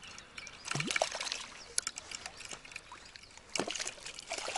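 Irregular water splashing and sloshing in the shallows as a hooked silver bream thrashes at the surface and a hand reaches into the water for it, with the loudest splashes about a second in and again near the end.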